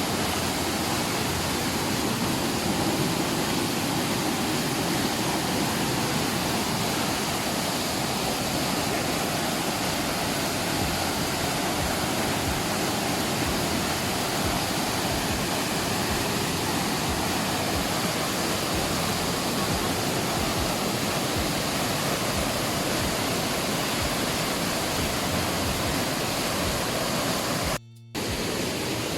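Waterfall rushing in full flood, a steady, even roar of falling water swollen by heavy rains. It drops out briefly near the end.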